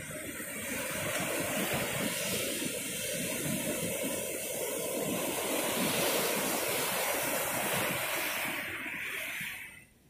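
Ocean surf breaking on a beach: a wave's rush swells over the first second or so and holds, then falls away sharply near the end.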